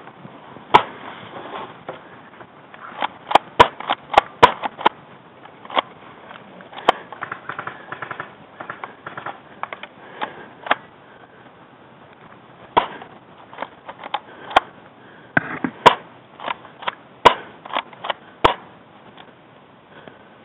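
Airsoft guns firing: scattered sharp pops at irregular intervals, with a quick run of several about three to five seconds in and another cluster in the second half.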